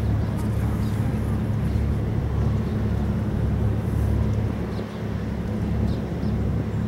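The Costa Atlantica cruise ship passing, its machinery giving a steady low rumble with a constant deep hum.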